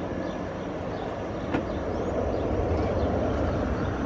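Airbus A320 jet engines climbing out after takeoff: a steady low rumble that swells slightly about halfway through.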